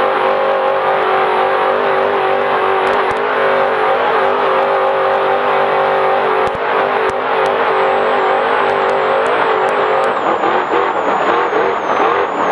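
Trophy Truck's V8 engine running hard at steady high revs, then from about ten seconds in the revs rise and fall as the throttle is worked. A few sharp knocks break in along the way.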